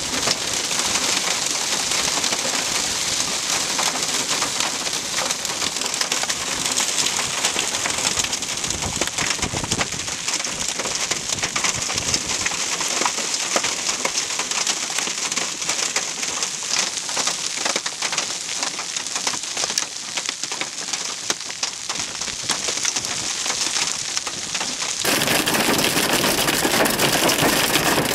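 Dime-size hail and rain pelting the ground in a severe thunderstorm: a dense, steady patter of small impacts. Near the end it turns louder and fuller as hail strikes a vehicle, heard from inside through the windshield.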